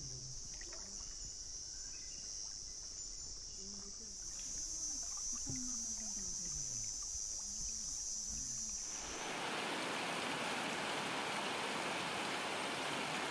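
Insects buzzing steadily in a high, thin drone, with faint distant voices beneath. About nine seconds in, it cuts suddenly to the even rush of a mountain river or stream.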